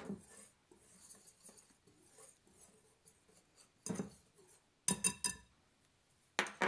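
Metal whisk stirring dry flour in a glass bowl: faint soft scraping, then sharp clinks against the glass, one about four seconds in, a quick run of several a second later, and another near the end.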